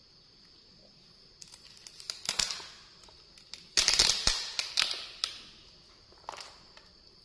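Plastic crinkling and rustling as a thin plastic bag and a packet of wet wipes are handled. It comes in short bursts, a shorter one about two seconds in and the loudest cluster around four to five seconds in.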